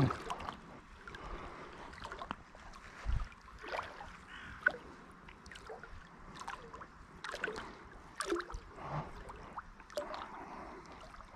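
Water sloshing and gurgling around a float tube as it moves along a river, in irregular small splashes and trickles.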